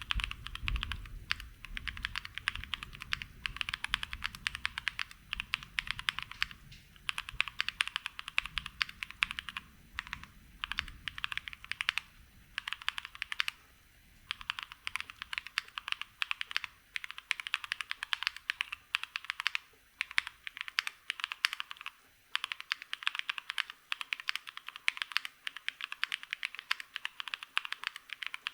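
Typing sound test on a Gok 7V plateless 75% mechanical keyboard with lubed Black Cherry Pie switches and GMK keycaps: fast runs of key presses in bursts of a second or two with short pauses between.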